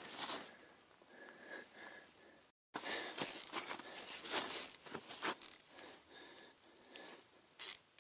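Spinning reel cranked in short, uneven turns with clicks and scrapes of rod and clothing handling, while the line is held fast by a fish hung up on the lake bottom. The sound cuts out completely for a moment about two and a half seconds in.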